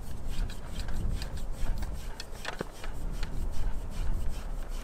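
AB Suppressors Raptor suppressor being spun by hand onto a rifle's threaded barrel: metal threads rubbing, with scattered small clicks and one sharper click about halfway through. A low rumble runs underneath.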